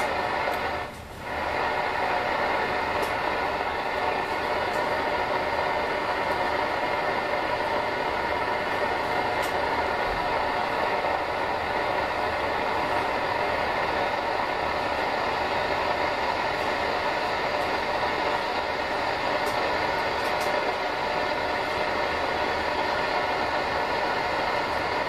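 Steady hiss of receiver noise from a Kenwood TS-940 HF transceiver's speaker while its receiver alignment is being adjusted, with a brief drop in level about a second in.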